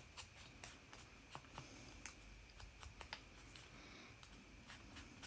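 Near silence with faint, scattered light taps and rustles of paper being handled as its edges are dabbed with distress ink.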